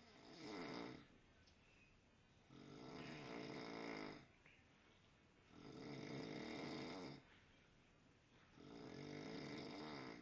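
A man snoring in his sleep: four snores, one about every three seconds, each lasting a second or more with quieter breathing between.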